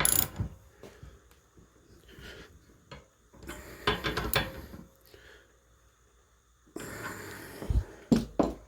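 Steel tools clinking and knocking as a rifle barrel is torqued into its receiver with an action wrench and torque wrench in a barrel vise, with a few heavy breaths of effort. The sounds come in separate bursts, with sharp knocks near the end.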